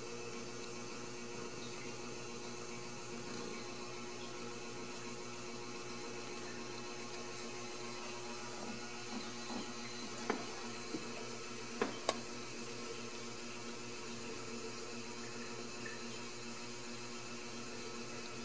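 Steady electrical hum over a low hiss, with a few soft clicks about halfway through.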